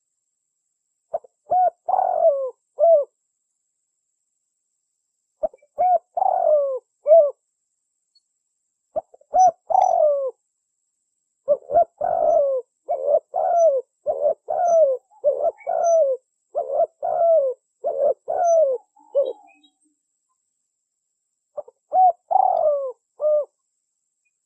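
Spotted dove (tekukur) cooing, played as a lure call to attract other doves. Short phrases of a few coos come at intervals, with one long run of rapid coos in the middle.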